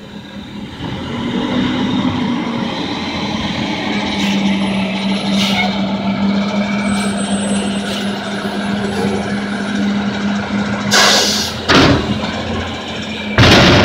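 Front-loading garbage truck running close by, its engine and hydraulics holding a steady drone as the front forks take up and lift a steel dumpster. A few loud sudden bursts of noise come near the end as the dumpster is raised.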